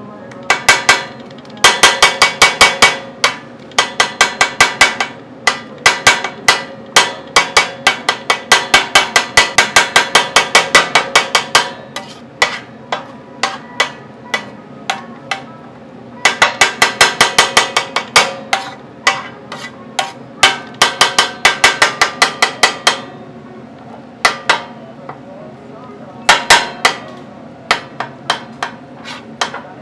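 Metal spatula striking a steel flat-top griddle in quick runs of sharp, ringing clacks, several a second, in bursts of a few seconds with short pauses between.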